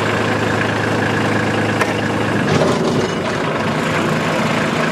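Kubota LX2610 compact tractor's three-cylinder diesel idling steadily. A click comes just under two seconds in, and about halfway through the sound changes as the PTO is engaged and the Woods BrushBull 60 rotary cutter's blades spin up, the whole running pretty smooth on its new gearbox and driveshaft.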